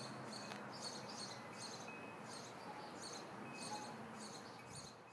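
Faint, regular high-pitched chirping, about two to three chirps a second, over a low background hiss.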